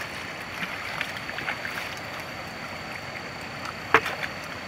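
Shallow river water sloshing and trickling around a wooden gold pan being worked by hand, over a steady wash of flowing water, with small scattered splashes. A single brief sharp sound stands out about four seconds in.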